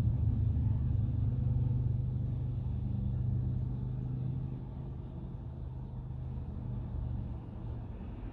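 Motor vehicle engine running with a steady low hum that grows gradually fainter.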